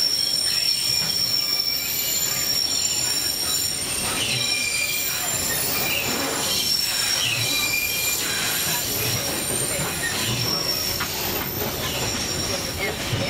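Narrow-gauge tourist train's wheels squealing against the rails, several steady high-pitched tones held over the running noise of the cars.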